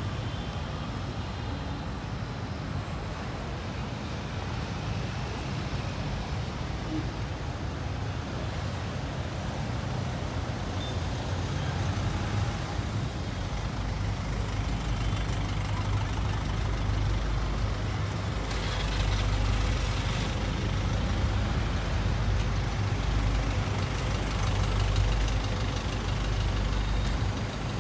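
Minibuses and cars driving slowly past: a steady low engine and road rumble that gets louder in the second half.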